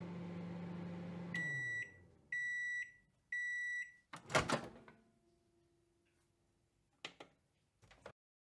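Microwave oven running with a steady low hum that winds down as the cycle ends, then three long high beeps about a second apart signalling it is done. The door opens with a loud clunk about four seconds in, and two small clicks follow near the end.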